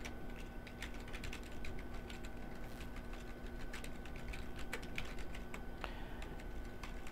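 Typing on a computer keyboard: quiet, irregular key clicks, over a faint steady electrical hum.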